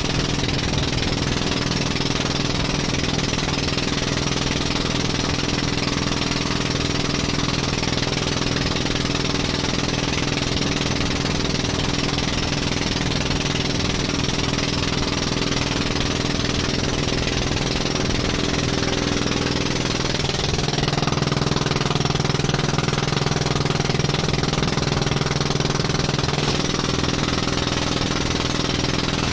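A bangka's single-cylinder inboard engine running steadily under way, with wind and splashing water over it. About twenty seconds in the engine note dips briefly, then runs on a little lower and louder.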